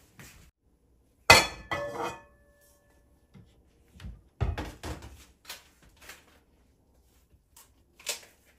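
Dishes and utensils being handled and set down. A loud clink about a second in rings briefly, followed by a run of lighter clatters and knocks, and one more clink near the end.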